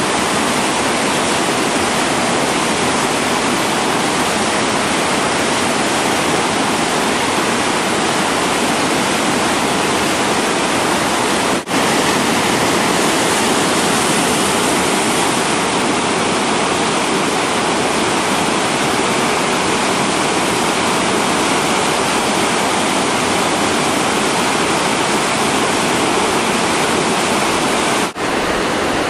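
Whitewater rapids rushing over boulders, a loud, steady wash of water noise, broken by two brief dips in level, about twelve seconds in and near the end.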